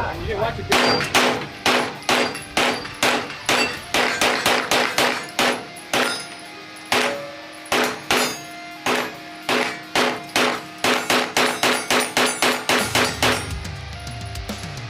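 A 9mm pistol-caliber carbine fed from a Glock-pattern magazine firing a long string of semi-automatic shots, about two to three a second, with each shot ringing briefly. There is a short pause about six seconds in, then a quicker run of shots that stops about thirteen and a half seconds in.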